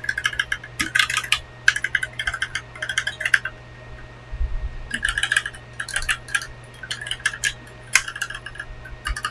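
Typing on a Gamakay LK67 65% mechanical keyboard with stock, unlubed Kailh Pro Burgundy switches and Akko keycaps: quick runs of key clacks, with a short pause about four seconds in.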